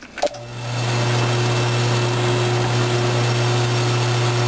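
Drill press switched on with a click about a quarter-second in, its motor spinning up to a steady hum. A 1/2-inch twist drill then feeds into 1/4-inch hot-rolled flat steel.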